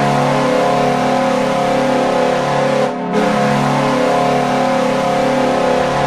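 Buffalo Sabres arena goal horn sounding, a loud chord of several steady tones held in long blasts, with a short break about three seconds in.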